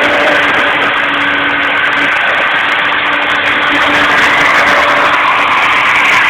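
Cable-driven CNC milling machine running: a steady machine noise with a low hum that drops out briefly about two seconds in and then resumes.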